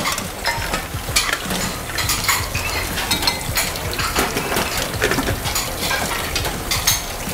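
Kitchen work sounds: irregular clinks, taps and scrapes of utensils against metal bowls, pans and dishes, over a steady low hum.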